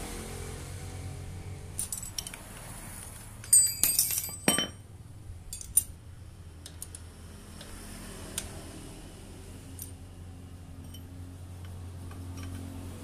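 Steel hand tools clinking and clattering, wrenches and sockets knocking against metal. A short loud burst of ringing clatter comes about four seconds in, with scattered lighter clicks before and after.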